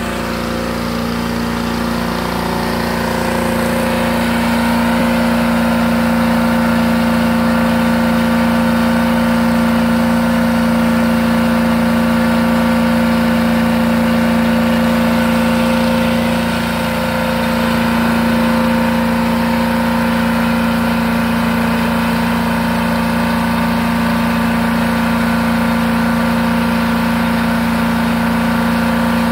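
Truck-mounted carpet cleaning machine running in the back of a van: a steady engine and vacuum blower drone with a strong low hum. It grows louder over the first few seconds and dips briefly a little past halfway.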